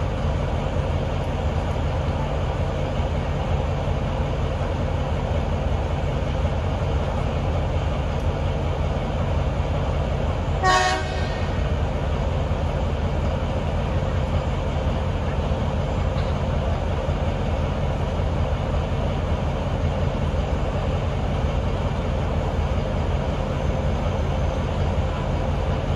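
Heritage NSW 44 class Alco diesel-electric locomotive approaching slowly, its engine running steadily, with one short horn toot about eleven seconds in.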